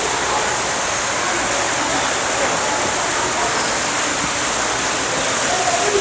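Steady rush of falling water from a waterfall, even and unbroken throughout.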